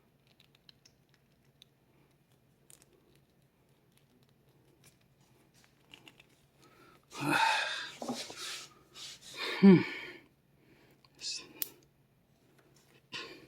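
Faint scattered clicks of a cheap four-digit combination bike lock's number wheels being turned and tested. About halfway through, a few seconds of louder wordless, voice-like sounds with gliding pitch.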